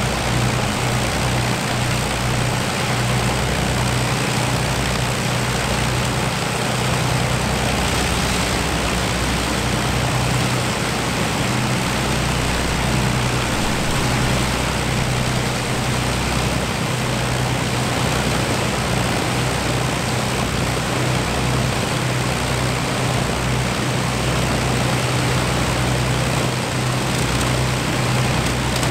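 Avro Lancaster bomber's Rolls-Royce Merlin V12 engines idling on the ground, a steady deep drone with a strong low hum.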